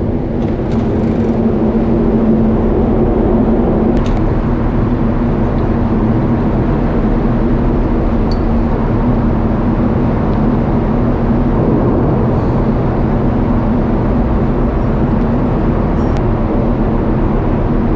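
Loud, steady engine drone with a constant low hum, from the ferry and vehicle engines around the boarding area.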